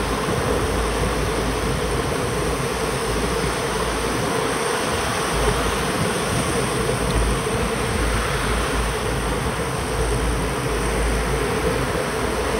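Steady riding noise from a bicycle on wet asphalt. Tyres hiss on the wet road under a steady hum, and wind buffets the microphone in deep, on-and-off rumbles.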